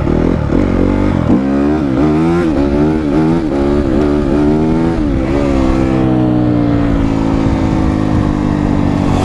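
Dirt bike engine revved in a run of quick throttle blips, then settling into a steady idle whose pitch sags slowly.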